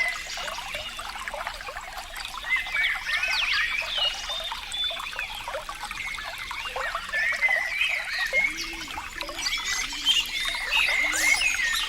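Running water trickling and gurgling in a continuous babble, with a run of deeper gurgles about once a second in the second half.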